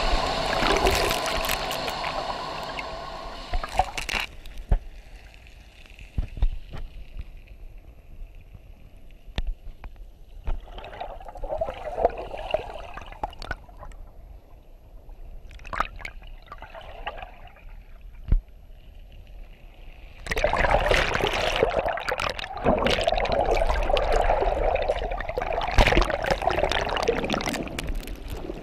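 Water sloshing and gurgling as heard underwater, with scattered clicks and knocks, growing louder and busier about twenty seconds in. A droning hum with several steady tones stops abruptly about four seconds in.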